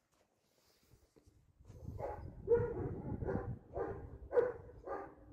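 A dog barking repeatedly, about two barks a second, starting a little under two seconds in.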